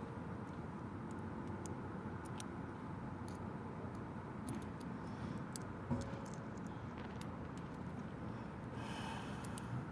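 Faint clicks and clinks of small metal parts as a screw and washer are worked into a car door handle assembly, over steady background noise; one light knock about six seconds in.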